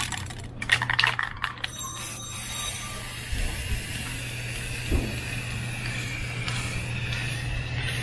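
Aerosol can of Samurai flat black spray paint: its mixing ball rattles as the can is shaken for about the first second and a half, then the nozzle hisses steadily as paint is sprayed.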